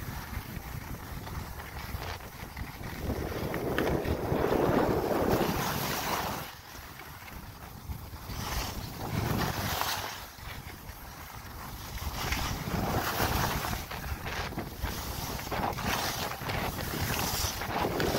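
Wind buffeting the microphone over the hiss and scrape of sliding downhill on snow, swelling into louder rushes every few seconds.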